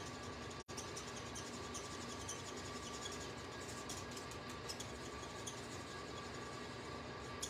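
Faint scratching of a Stampin' Blends alcohol marker's tip colouring on cardstock, over a steady low hiss with a faint high whine. The sound cuts out for an instant under a second in.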